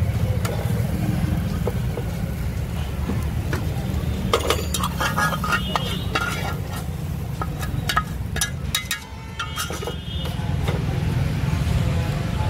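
Metal spatula scraping and clinking against a frying pan as the masala is scraped out onto the eggs. Most of the scrapes and clicks fall in the middle, over a steady low rumble.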